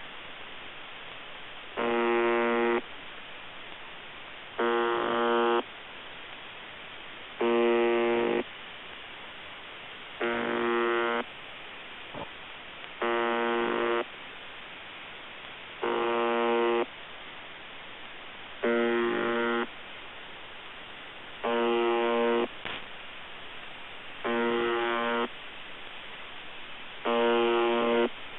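UVB-76 'The Buzzer', the shortwave station on 4625 kHz, heard through a shortwave radio receiver: a buzz about a second long that repeats about every three seconds, ten times, with receiver hiss between the buzzes. The buzz sounds a bit broken.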